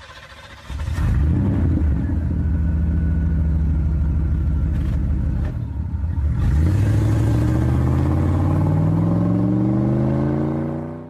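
A car engine comes in loud about a second in and runs at a steady rumble, then from about six and a half seconds revs up with a steadily rising pitch until it cuts off abruptly at the end.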